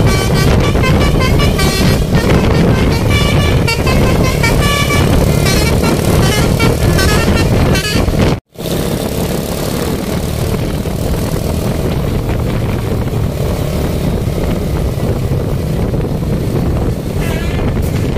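Bus telolet basuri horn playing a quick multi-note tune over engine and road rumble. About eight seconds in the sound cuts out for a moment, and afterwards the engine and traffic rumble carries on with only a short burst of horn notes near the end.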